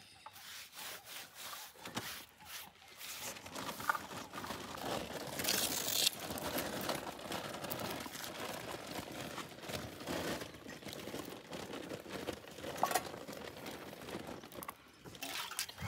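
Dry firewood sticks clattering and rustling as they are pushed and arranged in a clay cooking stove, with a newly lit wood fire crackling irregularly.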